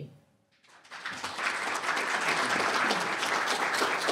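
A small seated audience applauding, beginning just under a second in and keeping up steadily.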